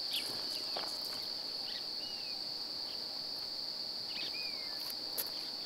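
An insect's continuous high-pitched trill, holding one steady pitch, with two brief curving chirps about two seconds in and again just past four seconds.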